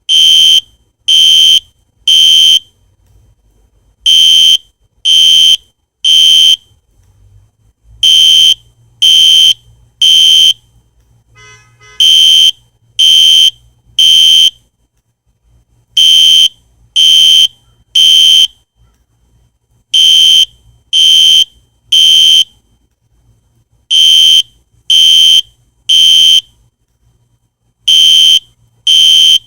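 Spectra Alert fire alarm horn sounding a loud, high-pitched beep in groups of three with a pause between groups, repeating every four seconds. This is the temporal-three evacuation pattern.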